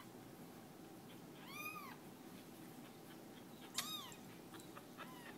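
Kittens mewing: two short, high-pitched mews, one about a second and a half in and another near four seconds, each rising and then falling in pitch, with a few faint taps after the second.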